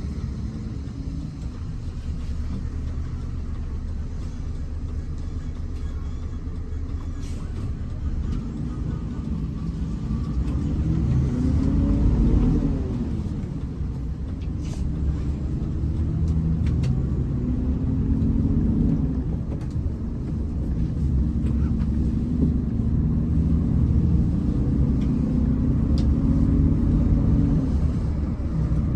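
Hino RM 280 bus's diesel engine running while the bus is under way, its pitch climbing and falling several times, loudest about twelve seconds in.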